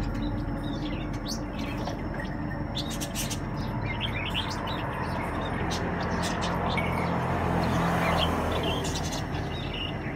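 Short, high chirps repeated at irregular intervals over a steady background noise that swells around eight seconds in.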